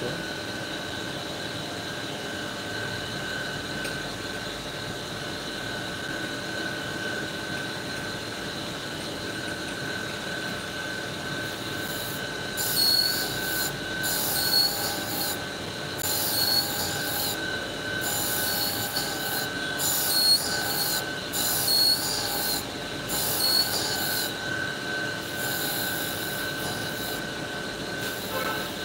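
Tool and cutter grinder's cup wheel running with a steady whine. From about halfway through, it grinds the relief on a 45° chamfer bit in repeated passes: a hissing, rasping grind about every second and a half as the bit is swung against the wheel.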